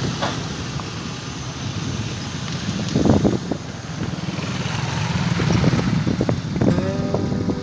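Outdoor rumble of vehicle engines and traffic, with wind buffeting the microphone; a few sharp knocks come about three seconds in and again near the end, along with a short pitched tone.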